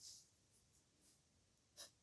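Faint scratching of a pen nib on paper in short handwriting strokes, one at the start and another near the end.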